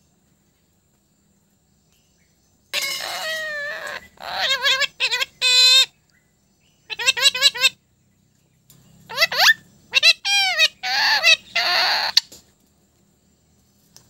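Indian ringneck parakeet calling and chattering in short bursts of high, pitched notes that bend and sweep, starting about two and a half seconds in. A quick rapid-fire run of notes comes around the middle.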